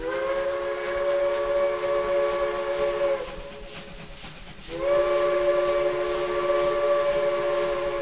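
Steam locomotive's chime whistle blowing two long blasts, each a chord of several tones that slides up slightly as it starts, with a hiss of steam underneath.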